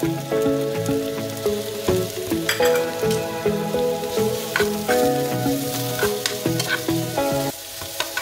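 Sliced onion and minced garlic sizzling in a stone-coated non-stick pan, with a metal spoon stirring and scraping against the pan in short clicks. A melody of background music plays throughout.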